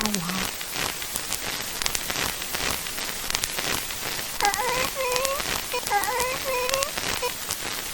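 A steady crackling hiss runs throughout. About halfway through, a wavering, voice-like sound comes in as a string of short bending notes for about three seconds.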